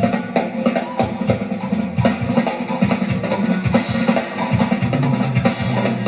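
A Yamaha drum kit with Zildjian cymbals played live, a dense run of rapid strokes on bass drum, snare and cymbals, heard as re-recorded from a TV's speakers.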